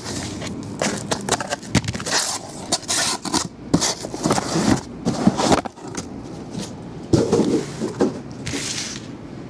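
Cardboard boxes scraping and sliding against each other and across a tabletop, with repeated sharp knocks as small card boxes are pulled from a shipping carton and set down in stacks.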